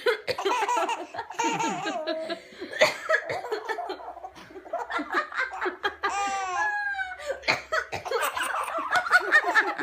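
Baby laughing in repeated belly laughs, with a high squealing laugh about six seconds in.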